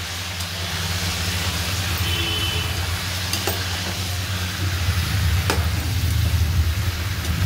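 Raw chicken pieces sizzling as they fry in hot oil, stirred with a metal slotted spoon that clicks against the pot a few times. A steady low hum runs underneath.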